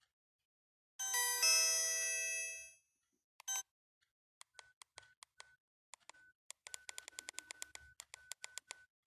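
Alcatel One Touch 1013D phone speaker playing a short ringtone chime of several notes that fades out, followed by a run of short identical beeps and clicks that quickens to about four or five a second near the end, like keypad beeps while stepping through the ringtone list.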